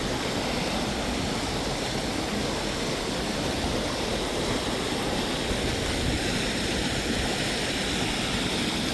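Rain-swollen creek running fast over rocks: a steady rush of rapids.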